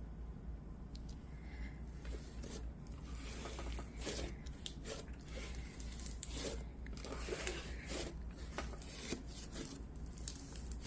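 Hands squishing and pulling a gritty pumice slime, giving irregular crackles and squelches that thicken after the first couple of seconds.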